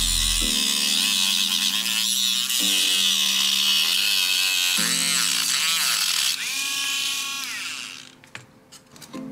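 Small handheld rotary tool with a thin cutting disc cutting through a plastic model car body's wheel arch, a loud high-pitched grinding whine. About six seconds in the cutting stops and the motor's whine falls in pitch as it winds down, dying away by about eight seconds. Soft background music underneath.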